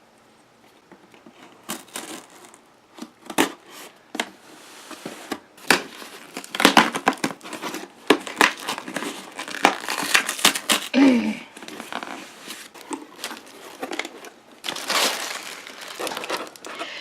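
A package being unwrapped and torn open by hand: packaging crinkling and tearing in irregular bursts of rustling and clicks.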